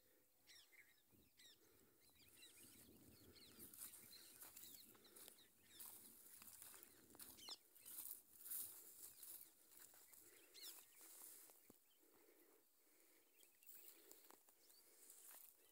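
Near silence: faint outdoor ambience with occasional distant bird chirps.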